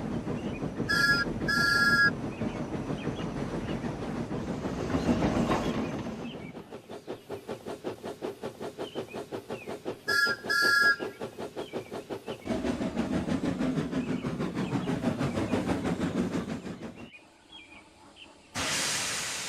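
Steam locomotive running with steady chuffing and wheels clicking over the rail joints. Its two-tone whistle gives two short toots near the start and two more about halfway, and a burst of steam hiss comes near the end.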